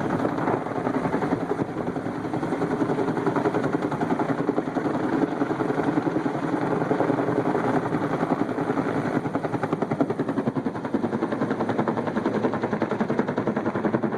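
Helicopter rotor blades chopping in a fast, steady rhythm as it flies off carrying a cargo net of supplies on a sling line.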